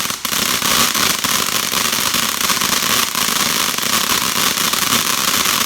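Ground fountain firework spraying, a steady loud hiss with dense crackling throughout.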